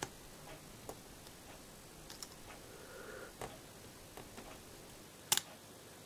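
Knife blade scraping and shaving thin layers off a plastic stopper inside a LEGO pneumatic switch body: a scatter of faint clicks and short scrapes, with a sharper double click about five seconds in.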